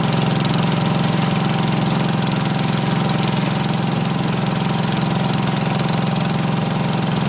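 Economy Power King 1314 garden tractor's engine running steadily under load as the tractor pushes snow with its front plow.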